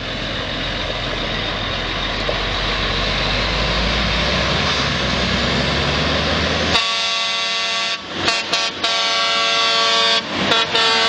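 Semi-truck air horn blasting: a long blast, a few quick toots, another long blast, then two more short toots before it holds again. For about the first seven seconds before the horn, a loud, steady rushing noise with a low rumble.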